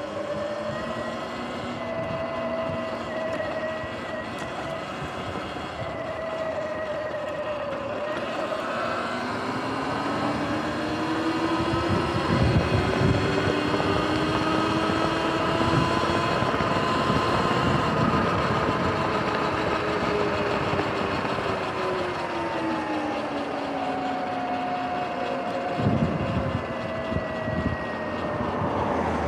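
Sur-Ron electric dirt bike's motor and drivetrain whining while riding, the pitch climbing and falling several times as the bike speeds up and slows. Wind rushes over the microphone throughout, with a few heavier low gusts.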